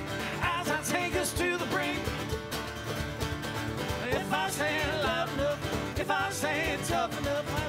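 Acoustic Americana band playing live: banjo, acoustic and electric guitars and cajon, with a lead voice singing.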